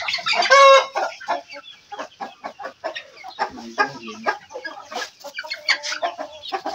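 A flock of goliath chickens clucking, with many short calls throughout; one loud, high call stands out about half a second in, and a lower call follows a little before the fourth second.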